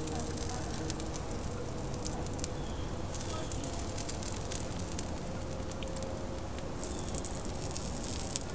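Steady crackling and light sizzling from the hot Big Green Egg ceramic charcoal grill, with many small sharp ticks throughout, as melted butter is brushed onto the pizza crust on the 450-degree pizza stone.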